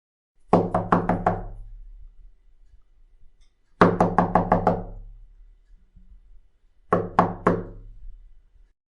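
A comedic percussive sound effect: three quick flurries of four to six sharp knock-like hits, each flurry leaving a pitched low ringing that dies away.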